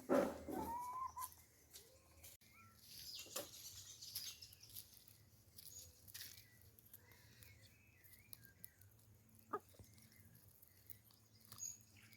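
A cat meowing once in the first second, a short rising call, followed by faint scattered clicks and rustles.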